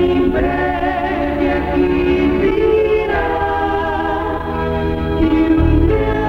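Gospel music with choral singing: a choir holding sustained notes over instrumental accompaniment.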